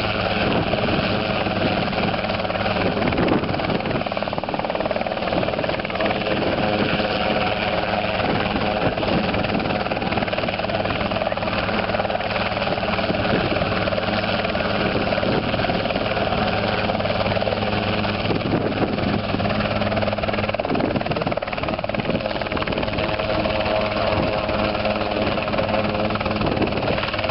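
Helisport CH-77 ultralight helicopter in a low hover, its engine and rotors running steadily.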